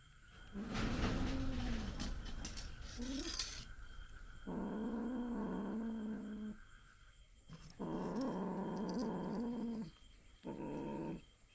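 Kitten growling while it clamps its mouth on a piece of raw meat, guarding its food. Four long, low, wavering growls with short breaks between them, with scuffling during the first growl.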